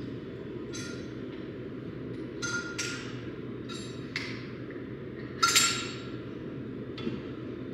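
Metal gym weights clanking: about seven sharp metallic clinks, each with a short ring, the loudest about five and a half seconds in, over steady low background noise.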